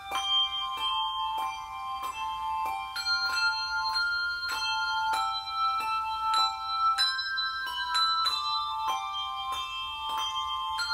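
Handbell trio playing a melody on brass handbells: notes struck at a steady pace, each ringing on over the next.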